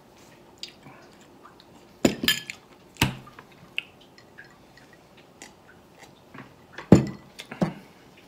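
Close-miked eating and drinking mouth sounds, broken by a few sharp knocks as a ceramic bowl and then a glass are set down on a table; the loudest knock comes about seven seconds in.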